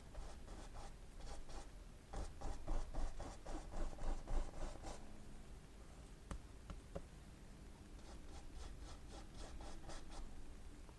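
Paintbrush stroking and dabbing oil paint onto canvas in quick scratchy strokes, about four a second, in two runs with a pause between.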